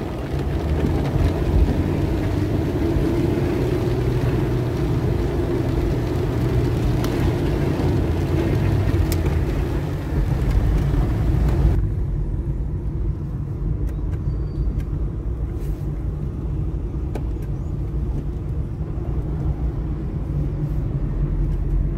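A car's engine and road rumble heard from inside the cabin while driving, with the hiss of rain and tyres on a wet road over the first half. The hiss cuts off abruptly about halfway through, leaving the steady low rumble and a few faint clicks.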